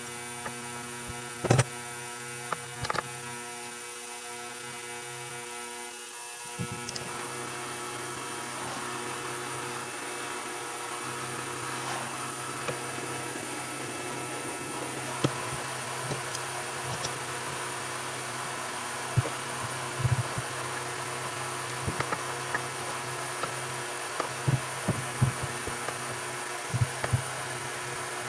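Steady machine hum with several fixed tones, growing a little fuller about six seconds in, with scattered sharp clicks and knocks, more of them in the second half.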